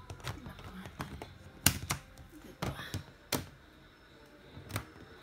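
Sharp hard-plastic clicks and knocks, about six spread over a few seconds, as the clear drop-front door of a plastic storage box is handled, with light rustling between.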